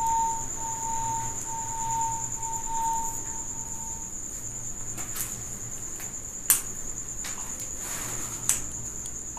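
A cricket trilling steadily at a high pitch, with a lower pulsing call that repeats about twice a second and stops about four seconds in. Two sharp clicks come near the end.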